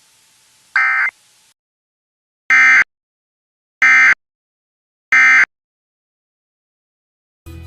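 Three short EAS end-of-message data bursts (the SAME 'NNNN' code): buzzy digital chirps pitched around 2 kHz, each about a third of a second long and about 1.3 s apart, marking the end of the flash flood warning broadcast. A brief electronic blip comes just before them, and music starts near the end.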